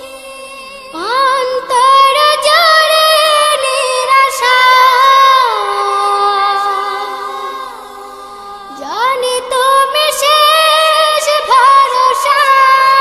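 A cappella vocal music by a children's group: a wordless vocal interlude of sliding melodic phrases over a held vocal drone, one phrase entering about a second in and another about nine seconds in, with a softer lull between them.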